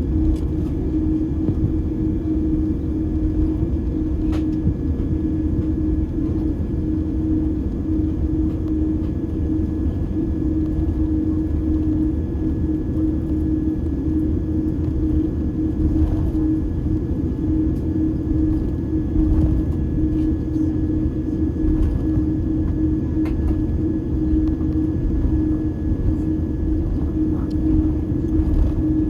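Steady rumble and hum of a jet airliner taxiing, heard inside the cabin, with a steady low drone and a faint higher tone, and a few faint ticks.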